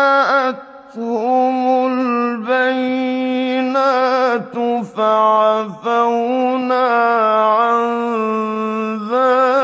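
A male Quran reciter chanting in the melodic mujawwad style, drawing the words out into long held notes that slide and turn between pitches, with a few short breaks for breath.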